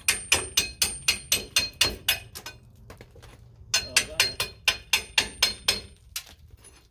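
Rapid hammer blows, about four to five a second, in two runs with a pause of about a second between them near the middle; each blow has a thin high ring, like a hammer striking metal.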